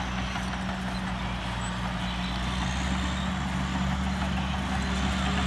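Vehicle engine running steadily at low speed with an even low hum.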